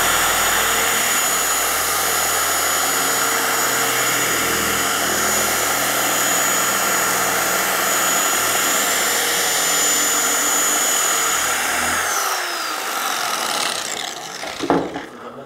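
Dual-action polisher with a black finishing foam pad running steadily against car paint with a high whine, refining off the haze left by microfiber cutting. About twelve seconds in it is switched off and winds down with a falling whine.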